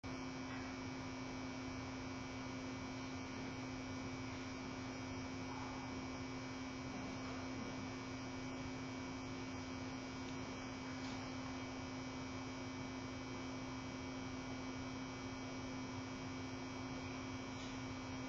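Steady electrical-type hum: one constant low tone with a fainter higher one, over an even background hiss, unchanging throughout with no animal sounds standing out.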